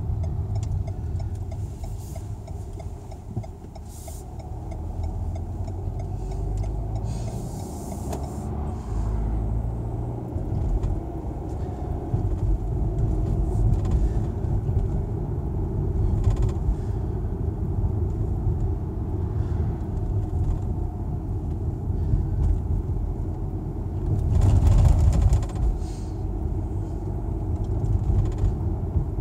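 Car driving through town streets, heard from inside the cabin: a steady low engine and tyre rumble, with a few brief knocks in the first eight seconds and a louder swell near the end.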